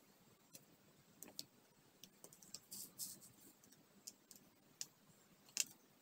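Faint, scattered small clicks and ticks of diamond-painting work: plastic resin drills and the drill pen tapping. There is a brief brighter rustle about three seconds in and a sharper click near the end.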